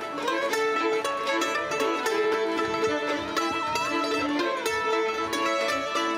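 Live string band playing a contra dance tune: fiddles carrying the melody over plucked-string accompaniment, with a steady beat.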